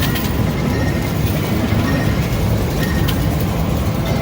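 Steady loud din of a busy arcade, a low rumble of machines and room noise with faint electronic tones and a few light clicks.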